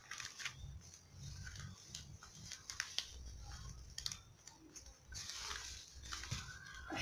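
Faint rustling and scattered small clicks of hands working potting soil and handling plastic pots while transplanting seedlings.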